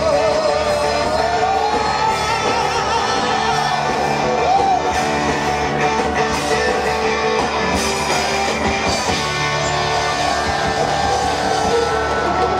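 Live band playing loud, steady music, with a wavering sung note held over the first couple of seconds before the band carries on without the voice.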